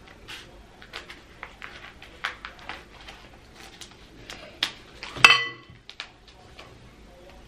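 Crinkling and clicking of the plastic wrapper on a whole yellow pickled radish (danmuji) as it is cut and pulled open with scissors over a glass bowl. About five seconds in comes one loud clink against the glass bowl, which rings briefly.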